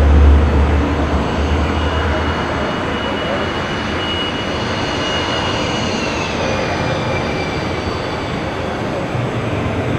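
Steady rushing noise in a model railway exhibition hall. A low rumble fades away over the first couple of seconds, and a thin high whine holds, then slides down a little past the middle.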